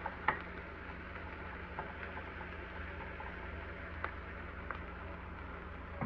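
Sliced onions, sweet peppers and tomato sizzling gently in oil in a frying pan. A wooden spoon taps against the pan a few times, most sharply just after the start, over a low steady hum.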